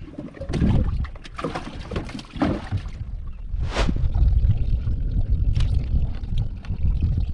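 Wind rumbling on the microphone on an open boat deck, with scattered small clicks and knocks and a brief hiss about four seconds in.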